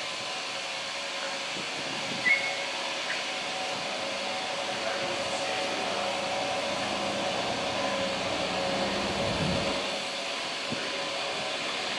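Steady hiss and faint hum of running machinery, with a brief high chirp about two seconds in and a low rumble swelling near the end.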